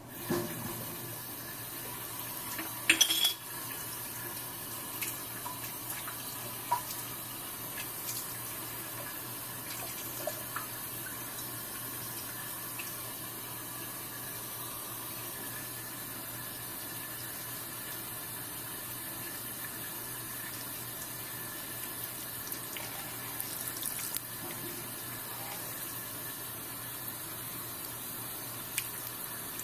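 Water running steadily, starting abruptly at the outset, with a brief loud knock about three seconds in and a few faint clicks.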